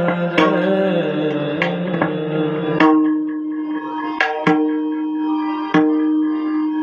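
Devotional kirtan music. A sung note is held over a steady harmonium-like drone for the first few seconds, then the drone carries on alone, with single strokes on a hand drum every second or so.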